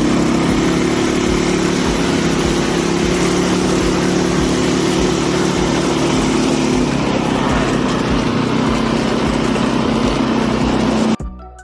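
ATV (quad bike) engine running steadily while riding, a constant engine hum under a broad hiss of ride noise. The sound cuts out abruptly near the end.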